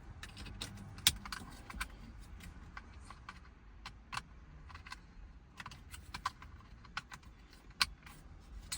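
Irregular sharp plastic clicks and taps as a dash clock's connector is plugged back in and the dash pieces are handled.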